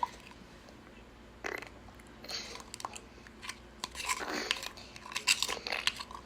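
Homemade slime being squeezed and kneaded by hand, giving scattered short wet squelches and sticky clicks. The slime is still a little watery.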